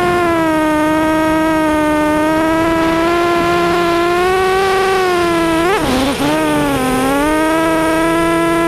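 FPV racing quadcopter's brushless motors and propellers whining steadily, heard from its onboard camera, the pitch rising and falling gently with throttle. About six seconds in the pitch swings sharply down and back up in a quick swoop.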